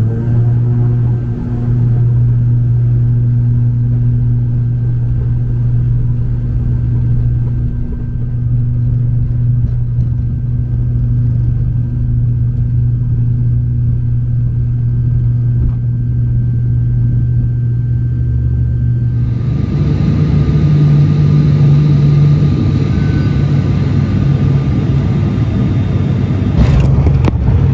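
Turboprop airliner's engines and propellers droning steadily, heard inside the cabin beside the engine as a loud low hum with a steady tone. About 19 seconds in the drone changes and more hiss comes in, and a brief clatter sounds near the end.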